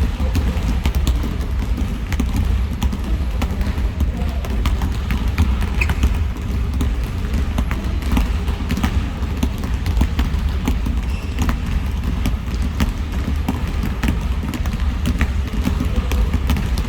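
Several basketballs bouncing on a gymnasium floor: many short, irregular thuds overlapping, over a steady low rumble of the hall.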